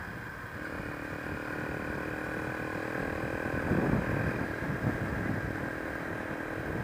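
Honda XR125's single-cylinder engine running steadily while riding, heard from the bike itself, with a few brief rises and falls in pitch about four to five seconds in.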